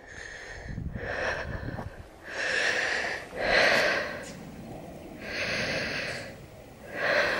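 Breathing close to the microphone: a slow run of soft, noisy breaths, about one every second and a half.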